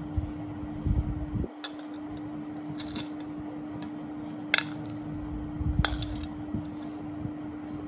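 A metal spoon clinking sharply against a bowl of pomegranate seeds a handful of times, over a steady low hum.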